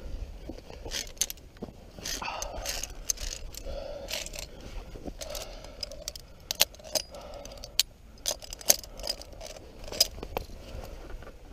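Via ferrata carabiners and lanyard clinking and scraping against the steel safety cable as a climber moves along it: irregular sharp metallic clicks and jangles, most frequent in the second half.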